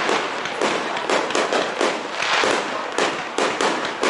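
Aerial fireworks going off in a rapid run of bangs and dense crackling, several reports a second.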